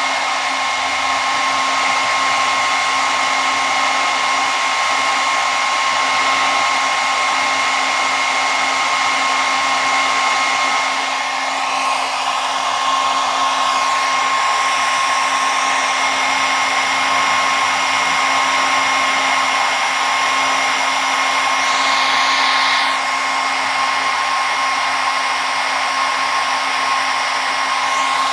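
Hair dryer running steadily: a constant rush of air with a steady motor whine.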